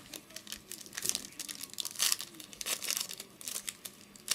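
Plastic trading card pack wrapper crinkling and being torn open by hand: irregular crackles and rustles as a 2008 Donruss Gridiron Gear football pack is opened.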